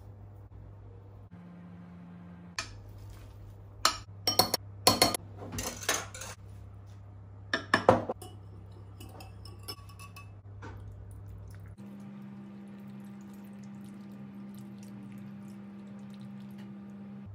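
Kitchen clatter of pots, pans and utensils knocking and clinking while cooking, in a cluster of sharp strikes in the first half and a few lighter ones after. A steady low hum runs underneath.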